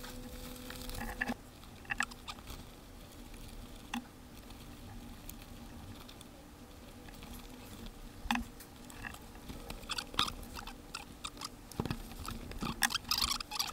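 Scattered light taps, rustles and scratches of hands working a seat cover onto an old car seat, busier in the last couple of seconds, over a faint steady hum.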